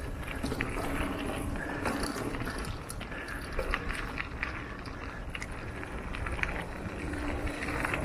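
Mountain bike rolling down a dirt trail: a steady rumble of tyres on the ground, with frequent clicks and rattles from the chain and frame over bumps.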